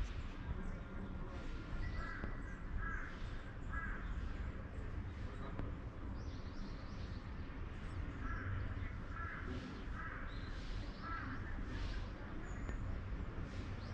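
A bird calling: a run of short repeated calls about two seconds in and another from about eight seconds in, over a steady low background rumble.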